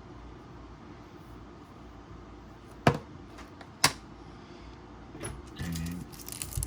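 Two sharp clicks about a second apart as small computer parts are handled, then rustling and crinkling near the end, over a steady low hum.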